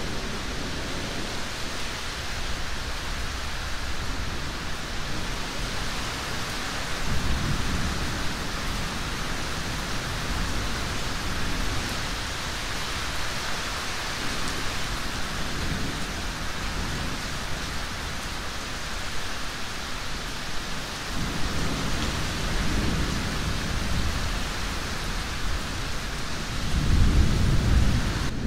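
Steady rain in a thunderstorm, with low rolls of thunder about seven seconds in and again around twenty-one seconds. The loudest roll comes near the end.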